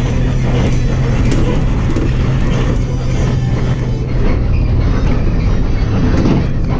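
Higer KLG6770G city bus engine running under way, heard from inside the passenger cabin: a steady low drone with road noise and occasional short rattles from the bus body.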